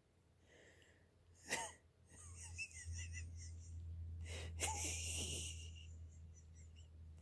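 Intermittent wheezing squeaks with a crinkly crackle, one short burst and then a longer one, coming from an empty plastic snack bag. A low steady hum runs underneath.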